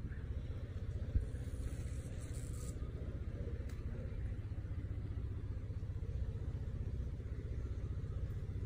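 A steady low rumble, with a single short knock about a second in.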